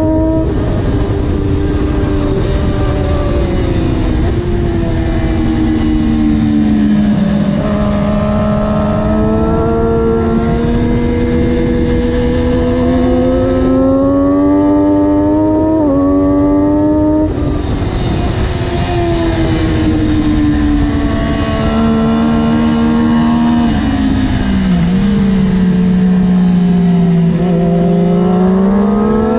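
Triumph Daytona 675R's three-cylinder engine running hard on track, with heavy wind rush. Its pitch falls and rises several times as the rider works through the gears, with a sudden jump in pitch about sixteen seconds in and a climb again near the end.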